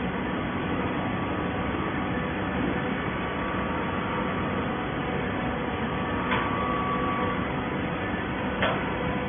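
Automatic horizontal baler running, a steady mechanical hum from its hydraulic power unit with faint steady tones. Two short knocks sound in the last few seconds.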